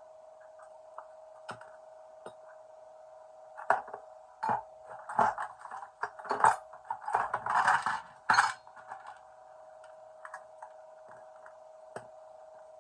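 Metal clinking and knocking as tools and metal plumbing parts are handled, in a dense cluster of sharp clicks in the middle, over a steady faint hum.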